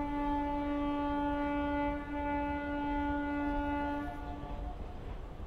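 Electric locomotive's air horn sounding one long steady blast of about four seconds, over a low rumble.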